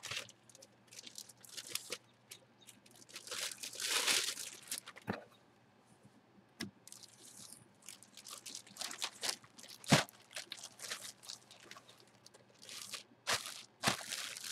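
Clear plastic bag crinkling and rustling in short, irregular bursts as a jersey is slipped into it and handled, with one sharp knock about ten seconds in.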